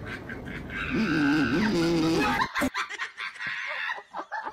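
A husky gives a drawn-out, wavering howl-like vocalisation about a second in, lasting just over a second. It is followed by a sharp knock and a run of quick, faint clicks.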